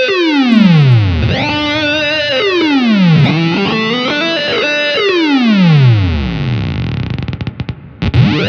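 Electric guitar through an EarthQuaker Devices Data Corrupter PLL synth pedal: buzzy synth-like notes, each swooping down in pitch in a long gliding tail. Near the end the sound chops up and briefly cuts out before a new note.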